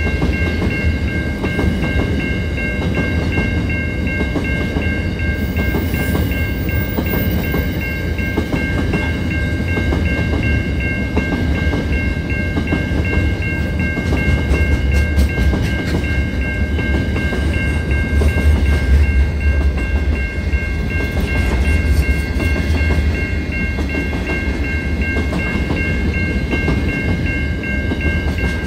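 Freight train of hopper wagons rolling past at speed with a steady low rumble and wheels clacking over the rail joints. Over it the level crossing's warning bell rings continuously in a fast, even pulse.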